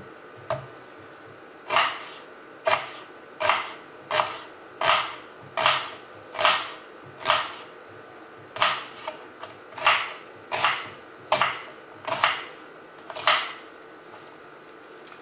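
Chef's knife slicing through an onion onto a plastic cutting board: about fifteen crunchy cuts at a slow, even pace, a little under a second apart, stopping a couple of seconds before the end.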